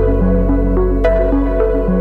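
Background music in a soft new-age style: a held bass note under a melody of short notes stepping up and down.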